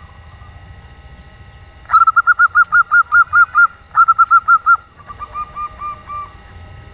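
Female zebra dove (perkutut) calling: a quick run of about ten clipped coo notes starting about two seconds in, then a burst of five, then a softer, slightly lower run of about six. A faint steady hum sits underneath.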